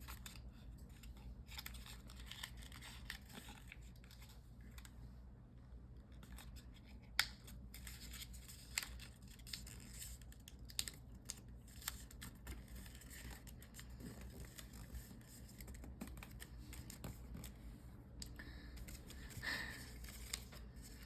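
Origami paper being folded and creased by hand: faint rustling and crinkling with scattered small clicks, one sharper click about seven seconds in, over a low steady hum.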